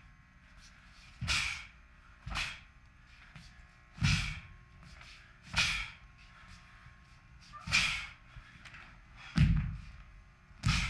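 Sharp snaps of a Taekwon-Do uniform and thuds of bare feet landing on the floor as the techniques of a pattern are struck, about seven in a row at uneven intervals.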